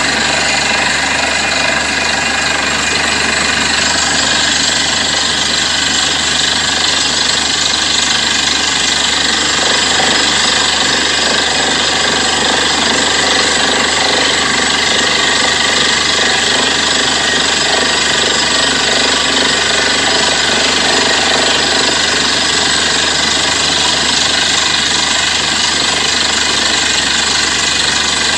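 Borewell drilling rig running steadily at work: a loud, unbroken machine din of engine and drilling.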